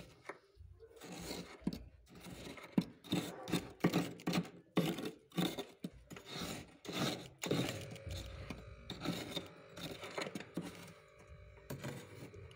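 Fingers digging and scooping through thick freezer frost, making a series of irregular crunching scrapes.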